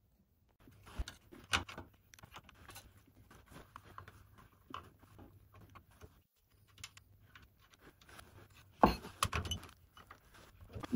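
Hand tool undoing the nut and bolt that hold a fuel-line clip and exhaust bracket under a car: scattered small metallic clicks and clinks, the loudest cluster about nine seconds in.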